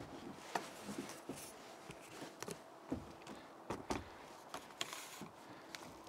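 Irregular faint knocks and clicks, a few with a low thud, over a faint hiss.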